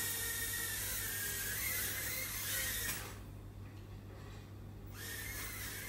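Micro FPV quadcopter's tiny motors whining, the pitch wavering up and down with the throttle. The whine cuts off suddenly about three seconds in and starts again about two seconds later.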